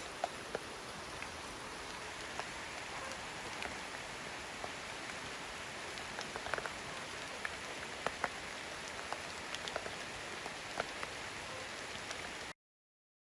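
Steady rain falling, with scattered individual drops ticking through it; it cuts off suddenly near the end.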